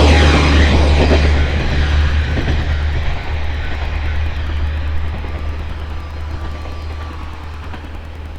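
Diesel railcar passing and moving away: a low engine rumble with wheel and rail noise, loudest at first and fading steadily.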